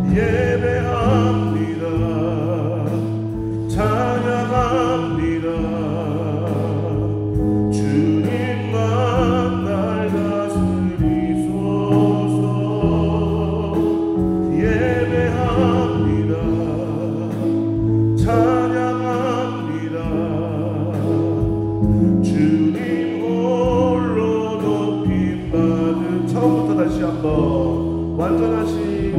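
Church praise band playing a gospel worship song: electric bass and drum kit with keyboard, under a group of voices singing together.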